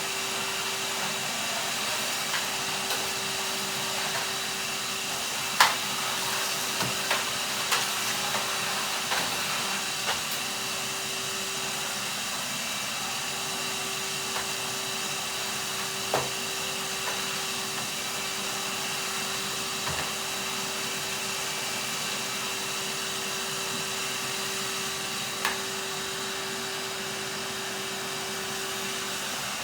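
Vacuum cleaner running steadily with a constant hum, broken by scattered clicks and knocks, the sharpest about six seconds in.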